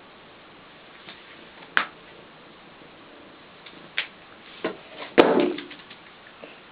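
A balloon being batted and bumped by a cat: a few scattered light taps and knocks, the loudest a little after five seconds in.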